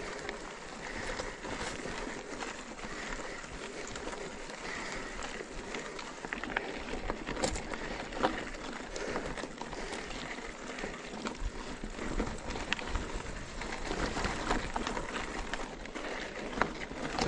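Mountain bike riding uphill on a stony dirt track: steady rolling crunch of the tyres over gravel, broken by many small clicks and knocks from stones and the bike's rattle.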